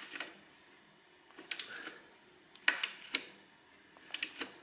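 Click-type torque wrench, set to 20 newton metres, tightening an automatic transmission drain plug: three short clusters of sharp metallic clicks a little over a second apart. The wrench's click signals that the plug has reached its set torque.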